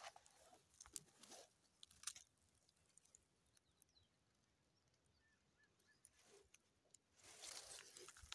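Mostly near silence with a few faint clicks, then near the end a faint dry rustling as dried palm fronds and stalks brush past.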